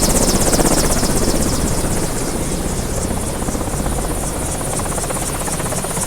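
Helicopter running, its rotor giving a rapid, even beating over a steady engine whine, easing a little over the first two seconds and then holding steady.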